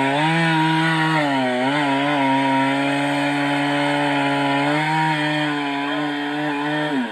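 Stihl MS 382 two-stroke chainsaw cutting into a large tree at full throttle. Its pitch sags briefly under load a second or two in. At the end the throttle is released and the engine winds down.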